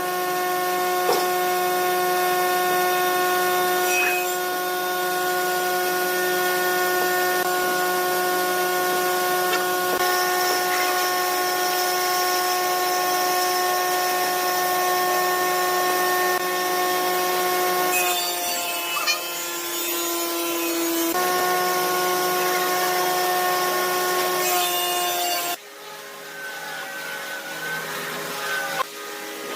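Wood lathe running with a steady whine while a turning tool cuts the spinning epoxy-and-wood blank, with a hiss of cutting over it. The whine wavers in pitch for a few seconds midway. Near the end the sound drops sharply and the cutting hiss fades.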